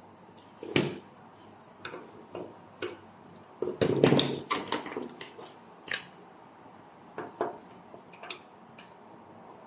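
Scattered clicks and small knocks of a wire being fed into a circuit breaker's terminal and handled against a metal breaker panel box, with a louder burst of clattering about four seconds in, then a few light clicks as a screwdriver is brought to the terminal screw.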